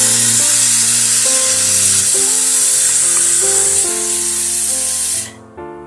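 Churma sizzling in ghee in a pan as it is stirred: a loud steady hiss that cuts off suddenly near the end. Background music plays under it throughout.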